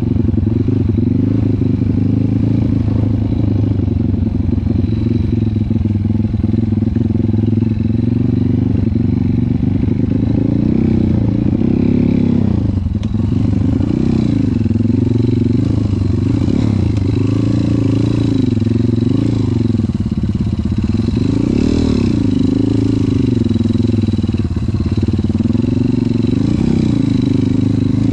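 Dirt bike engine running hard, its pitch rising and falling again and again as the throttle is opened and closed.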